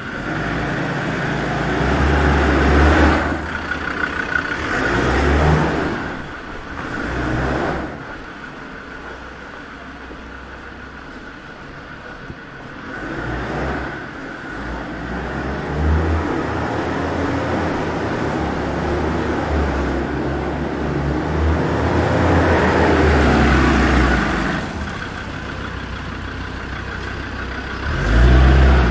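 Road traffic: cars passing close by one after another, each rising and fading, with tyre hiss on a wet road. A longer, louder run of traffic fills the second half.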